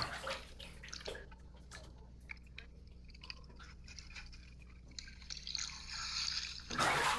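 Swimming-pool water heard by an underwater camera: faint scattered drips and bubbling clicks, then louder splashing and rushing water as the camera comes up out of the water near the end.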